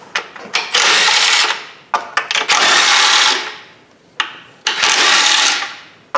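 Cordless power tool with a socket on an extension spinning bolts out of an intake manifold: three whirring runs of about a second each, with short clicks of the socket and bolts in between.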